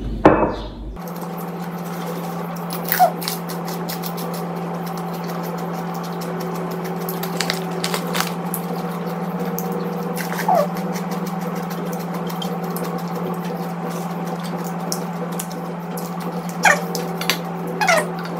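Close-up chewing and crunching of raw vegetables, a run of short crisp crackles, over a steady low hum. A few short falling squeaks come through, a pair near the end.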